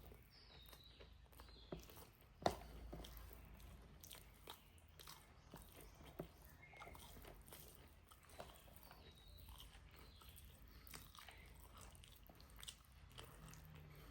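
A person chewing and biting pork: soft, irregular mouth clicks and smacks, with one sharper click about two and a half seconds in.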